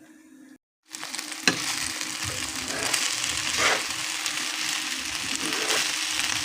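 Fried rice sizzling in a hot pan as it is stirred, with a sharp knock of the utensil about a second and a half in. The sizzling starts abruptly just under a second in.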